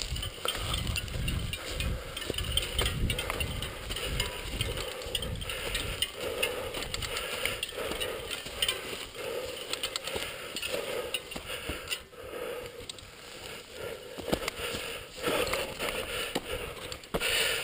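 Mountain bike being pushed on foot over dry grass and dirt: the rear hub freewheel clicks as the wheels roll, with footsteps and wind rumbling on the microphone in the first few seconds.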